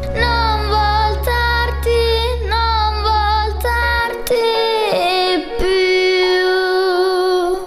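A girl singing a pop ballad over a backing track, the melody bending and sliding. The low bass drops out about four seconds in, and she ends on a long held note.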